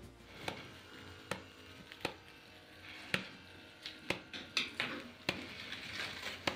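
A string of light, sharp clicks and knocks, roughly one a second and unevenly spaced, over faint room noise.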